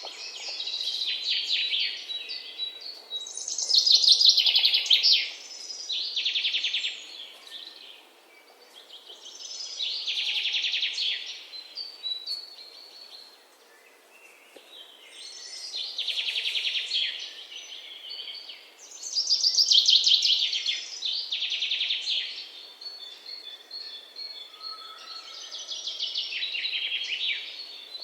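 Birdsong: a songbird repeating rapid trilled chirping phrases, each a second or two long, with short pauses between them.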